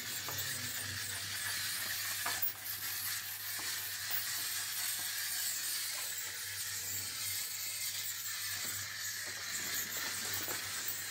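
Handheld yellow spray machine hissing steadily as it sprays tick medicine over a cow's hide, with a low steady hum underneath.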